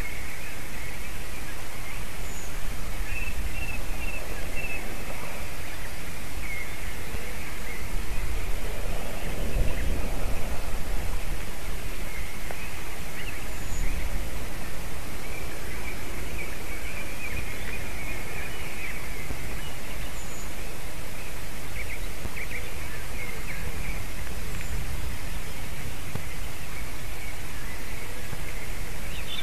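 Steady outdoor wind and microphone hiss, with faint bird calls coming and going. A low rumble swells briefly about eight to eleven seconds in.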